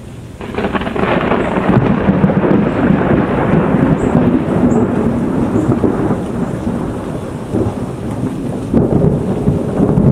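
A long roll of thunder from a dry thunderstorm. It breaks in about half a second in and rumbles on, rising and falling in loudness.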